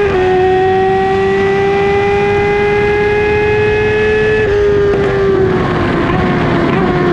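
2008 Kawasaki ZX-10R's inline-four engine at high revs under hard acceleration, its pitch creeping slowly upward; about four and a half seconds in the throttle closes and the revs begin to fall steadily. A constant rush of wind runs under the engine note.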